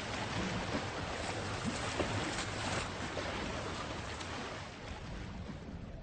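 Sea water washing and rushing at the surface, a steady noisy wash with a few faint splashes.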